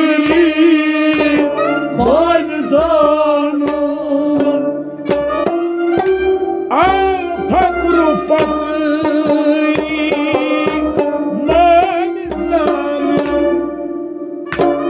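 Kashmiri kalam, a devotional song, sung by a man over a steady held drone, with tabla strokes keeping the rhythm; the melody slides and wavers around its notes.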